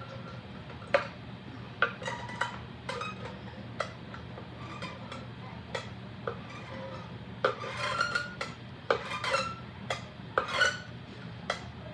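Scattered light metallic clinks and taps, each ringing briefly. They come in quicker clusters for a few seconds past the middle, over a low steady hum.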